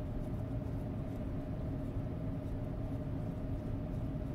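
A steady mechanical hum with a low rumble and a constant tone, unchanging throughout.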